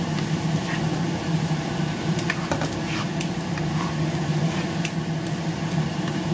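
Shrimp frying in a nonstick pan with a light sizzle, and a few soft clicks as plastic tongs turn them. Under it runs a steady low machine hum, which is the loudest sound.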